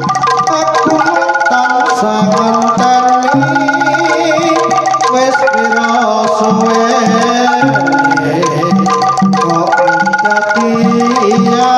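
Javanese gamelan music accompanying a jaranan dance: metallophones play a repeating melody of struck notes over hand-drum (kendang) beats, loud and amplified through a sound system.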